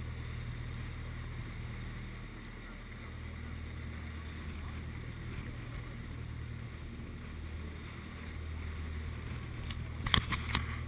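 Inboard engine of an old motor lifeboat droning steadily under way, with water and wind noise over it. A few sharp knocks come near the end.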